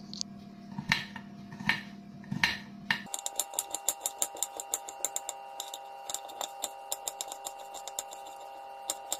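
Knife slicing garlic cloves on a plastic cutting board, each cut ending in a light tap on the board. A few separate taps at first, then from about three seconds in a quicker, fairly even run of about three taps a second.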